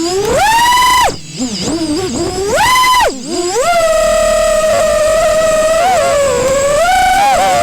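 FPV quadcopter's brushless motors whining, picked up by the onboard microphone. The pitch climbs sharply and drops off twice in the first three seconds as the throttle is punched and cut, then holds steady with small wobbles.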